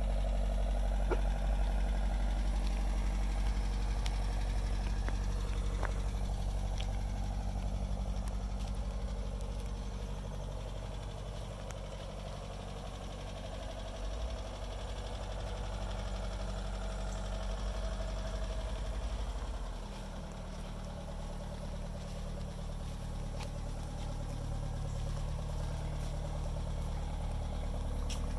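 A 1992 Nissan Figaro's 1.0-litre turbocharged four-cylinder engine idling steadily with a low, even exhaust note. The note shifts slightly about two-thirds of the way through and grows a little louder near the end.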